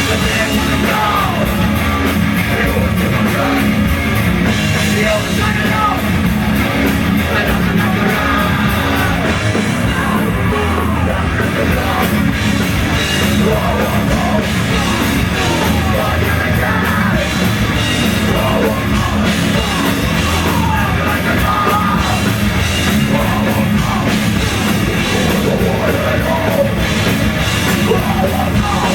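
Rock band playing loud live, with a singer yelling and singing over guitar and drums.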